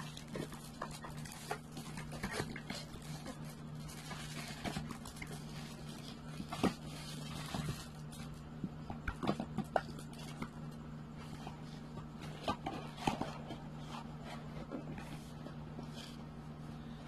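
Scattered clicks and light knocks from things being handled on the table close to the phone, over a steady low hum.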